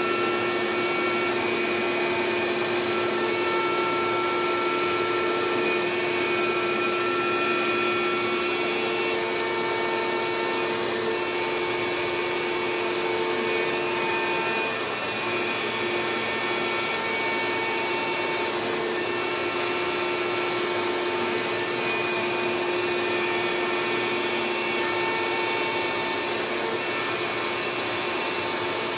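CNC-mounted DeWalt router spindle running steadily while milling a carbon fiber sheet, with the dust-collection vacuum running through its hose. The sound is a continuous hiss under several held whining tones that drop out and return as the cutting load shifts.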